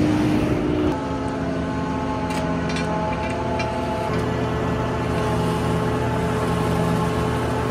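Tractor engine running steadily at raised revs, driving a Siloking feed mixer wagon through the PTO: a steady mechanical hum with several held tones that shift about a second in and again about four seconds in.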